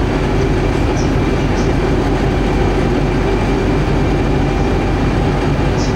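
Scania K280UB city bus's rear-mounted five-cylinder diesel engine and driving noise, heard from inside the passenger cabin as a steady low drone. A few brief high squeaks come through, about a second in, again shortly after, and near the end.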